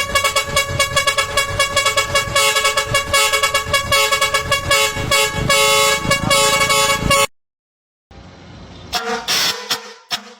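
Long four-foot trumpet air horns on a vehicle blasting a steady chord of several tones for about seven seconds, then cut off suddenly. After a short silence a second horn blast starts, quiet at first, then loud.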